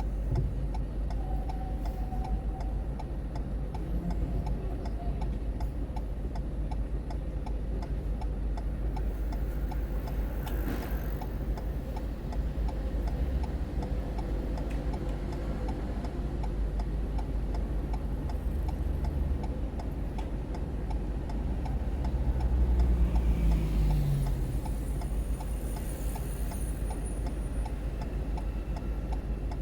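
Car turn-signal indicator clicking in a steady, regular tick-tock over the low rumble of the engine and road. Near the end a louder rumble swells, falling in pitch, and fades.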